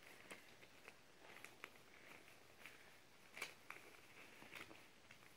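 Faint rustles and a few soft crinkles of paper being folded and creased by hand into a paper airplane.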